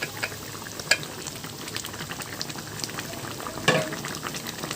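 Chicken curry gravy bubbling and sizzling in a pan, with small crackling pops, as thick gongura paste is spooned in. Two sharp knocks of the spoon against the pan, about a second in and again a little after three seconds, the second the louder.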